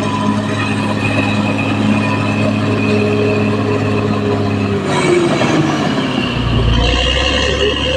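Caterpillar D6R XL bulldozer running: a steady diesel engine note with metallic track noise. About five seconds in the sound changes, with a whine falling in pitch and the engine settling into a deeper note.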